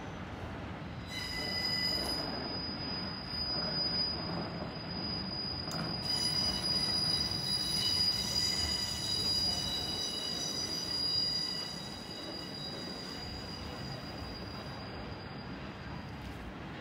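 Freight train of double-deck car-transporter wagons rolling past, its steel wheels squealing on the rails with several high, steady tones over a rumble. The squeal is loudest through the middle and eases off after about twelve seconds.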